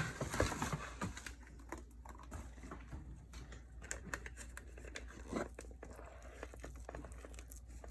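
Paper bag holding popped popcorn and caramel rustling and crinkling as it is folded shut and shaken to coat the popcorn, with many light, irregular clicks.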